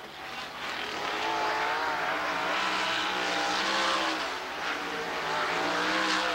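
Race car engines running on a dirt oval track, several engine notes rising and falling in pitch as the cars circle.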